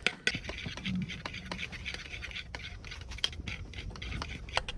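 Scratching and scraping with scattered small clicks: dishes and utensils handled during cooking prep.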